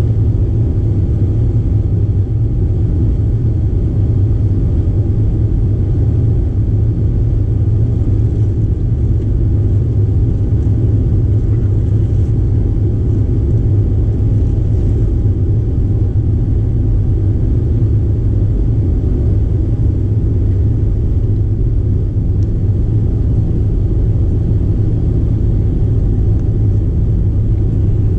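Cabin noise inside a BAe Avro RJ85 on the ground: its four turbofan engines and the airframe make a steady, loud low rumble, with a faint steady whine above it, as the jet taxis.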